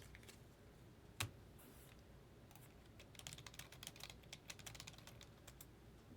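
Faint light clicking: one sharp tap about a second in, then a quick flurry of small clicks from about three seconds in until near the end.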